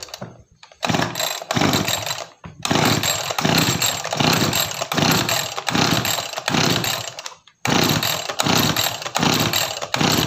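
Small two-stroke engine of a backpack power sprayer, pull-started on choke and run with the throttle cracked open. It runs unevenly, swelling about every half second, and cuts out suddenly twice, about 2.5 and 7.5 seconds in. This is the rough, powerless running under throttle that the owner complains of, typically from dirt in the carburettor.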